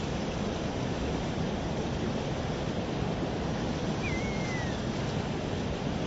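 Steady rush of a fast-flowing mountain river. About four seconds in, a bird gives a single short whistle that falls in pitch.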